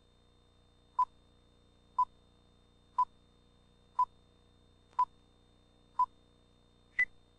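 Electronic beeps: six short beeps at one pitch, one a second, then a seventh higher beep a second later, in the pattern of a countdown ending on its final tone.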